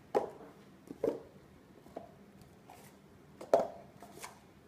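Red plastic party cups being set down on a stone countertop and onto one another as a pyramid is stacked: about half a dozen sharp, light taps at uneven intervals.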